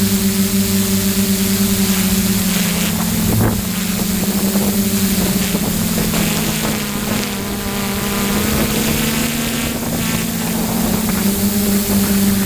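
Hexacopter's six DJI E310 brushless motors and propellers humming steadily at flight throttle, the pitch shifting slightly as the throttle changes, with wind noise on the microphone.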